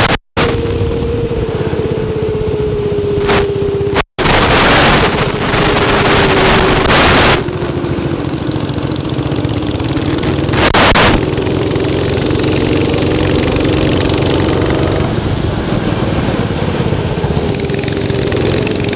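Go-kart engines running as karts lap the track, one engine note slowly falling and then rising again, with a few short rushes of noise as karts pass. The sound cuts out briefly twice in the first few seconds.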